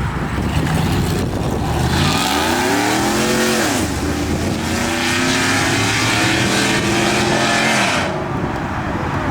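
A car engine revving hard as the car accelerates away: the pitch climbs about two seconds in, drops at a shift near four seconds, then pulls steadily again until the noise falls away about eight seconds in.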